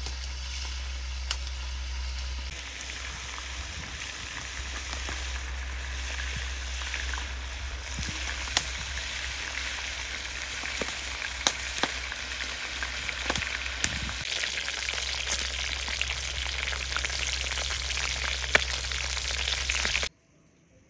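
Chunks of meat frying in hot oil in a cast-iron kazan: a steady sizzle with frequent sharp pops and crackles. It cuts off suddenly near the end.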